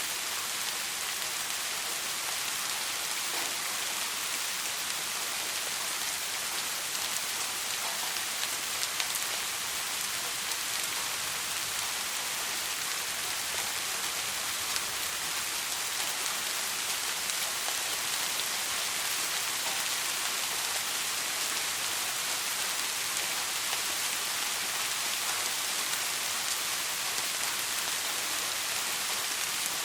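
Steady rain, an even hiss of many drops with scattered individual drop ticks.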